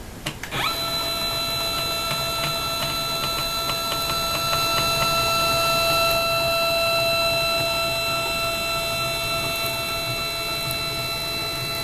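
CNC mini mill's stepper motor driving the table along the X axis: a steady, musical whine after a quick rise in pitch in the first second as it ramps up to speed.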